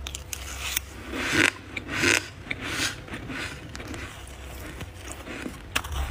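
Powdery freezer frost being scraped: a handful of short, gritty crunching scrapes, the loudest two about one and two seconds in, over a low steady hum.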